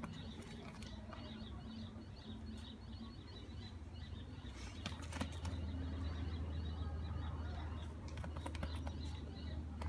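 Scattered sharp clicks and scratches from a pearly conure moving about and playing in a cardboard box playhouse, in two clusters about five seconds in and near the end, over a steady low hum.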